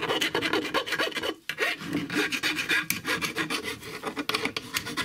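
Round rasp filing the sealing edges of a Vespa PX aluminium engine case half, rounding them off in quick back-and-forth scraping strokes, with a brief pause about one and a half seconds in.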